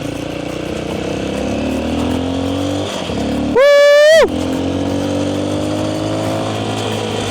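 Single-cylinder engine of an AKT TT DS 200 motorcycle pulling away on sand, its pitch climbing, dropping at a gear change about three seconds in, then climbing again; the exhaust is leaking after a crash, which makes it noisier. About halfway through, a loud high tone sounds for under a second, rising slightly and falling off at the end.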